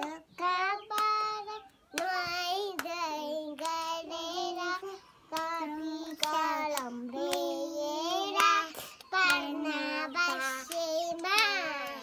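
A small child singing in a high voice, in short sung phrases with brief pauses between them.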